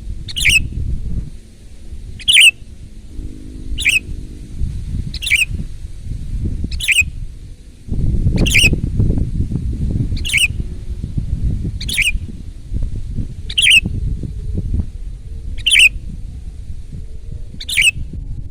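Sooty-headed bulbul (kutilang) giving a short, sharp, falling call over and over, about once every second and a half. A loud, uneven low rumble of background noise runs underneath.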